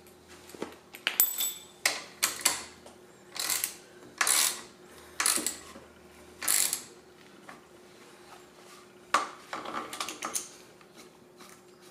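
Small metal clinks as a socket goes onto the caster stem nut, then a ratchet wrench clicking in about four short strokes as it turns the nut down on the wheelchair caster. More metal clicks and rattles come near the end.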